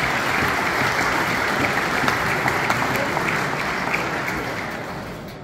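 Audience applauding: steady, dense clapping that dies away over the last second or so.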